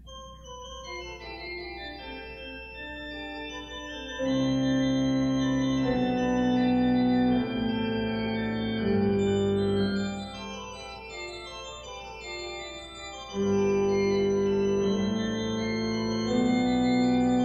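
Organ improvising a slow chorale prelude in long held chords. It opens softly in the upper voices. About four seconds in, louder low chords come in, ease off around ten seconds, and swell back about thirteen seconds in.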